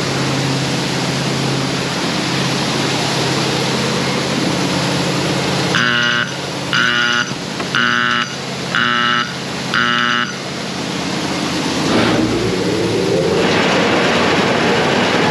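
Grain dryer running with a steady fan noise. About six seconds in, a start-up warning buzzer beeps five times, about once a second. Then comes a low thump and a rising whine as a motor spins up.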